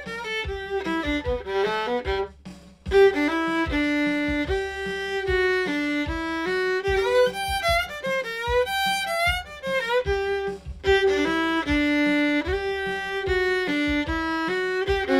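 Solo fiddle playing an improvised bluegrass break in G built on the G pentatonic scale, with some notes slid into and some double stops. There is a brief gap about two seconds in.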